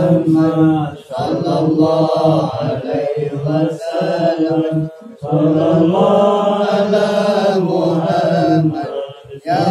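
Men chanting sholawat, Arabic devotional praise of the Prophet, together in long sung phrases, with brief breaks about a second in, about five seconds in and near the end.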